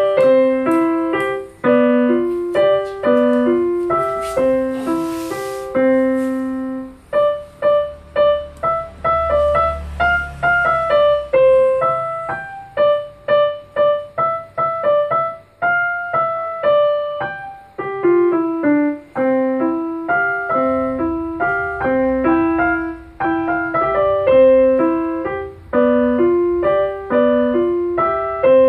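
Piano playing a simple melody in a steady rhythm, mostly single notes with a repeating low note pattern. A brief hiss sounds about five seconds in.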